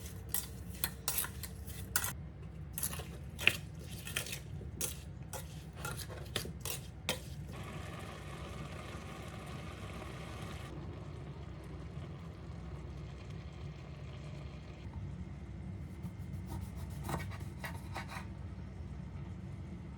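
Kitchen utensils clinking and tapping against dishes and cookware, many short clicks over the first seven seconds or so. Then a steady hiss for a few seconds, and a few more clinks near the end.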